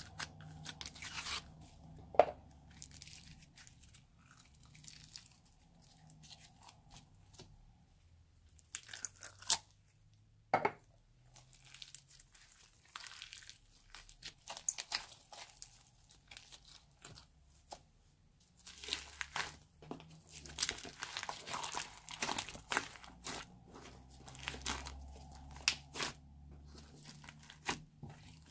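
Sticky slime full of small beads being peeled from a plastic tub and kneaded by hand, making irregular crackles and crunches. The crackling is sparse at first and comes thick and fast for most of the last third.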